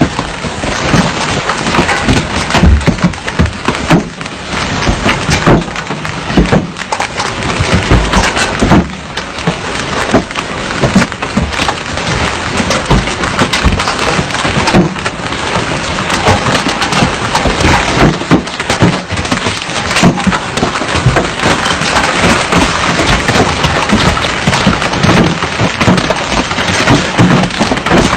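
Large hailstones pelting down hard: a dense, continuous clatter of many separate impacts.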